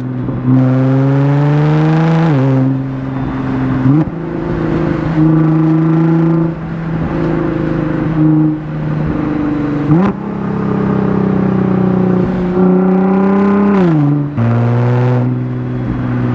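Nissan GT-R R35's twin-turbo VR38 V6, with a non-catted midpipe, running under load while driving. The dual-clutch gearbox shifts several times: the engine note drops sharply on upshifts about two seconds in and near the end, and jumps up on downshifts about four and ten seconds in.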